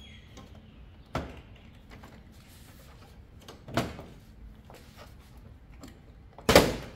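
Plastic retaining clips of a car's front grille snapping loose as the grille is pulled out: three sharp clacks a couple of seconds apart, the last the loudest and longest.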